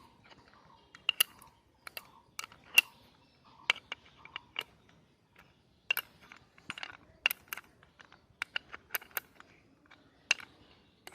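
Irregular sharp clicks and clinks of hand tools and small metal parts being handled, a dozen or more at uneven spacing, some much louder than others.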